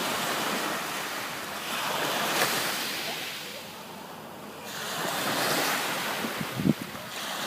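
Mediterranean surf breaking and washing up the beach, swelling and fading in three waves. Wind bumps on the microphone a few times near the end.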